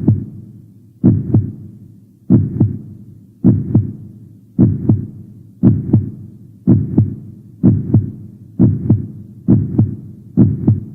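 Heartbeat sound effect: paired lub-dub thumps, each with a short fading tail, about once a second. The beat gradually quickens.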